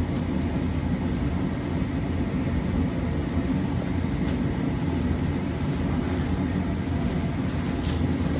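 Steady low-pitched rumble of background noise, with a few faint ticks about four seconds in and near the end.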